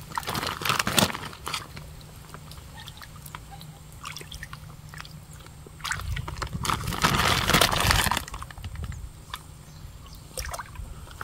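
Water sloshing and splashing as hands and feet move through shallow muddy water, groping along the bottom for snails. It comes in two bursts, a short one at the start and a longer one from about six to eight seconds in, with scattered small clicks between them.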